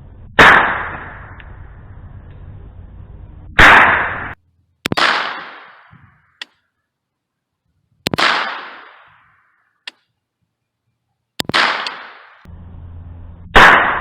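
AR-15 pistol with a .22 LR conversion kit firing six single shots a second or few apart, each sharp crack trailed by a short fading echo.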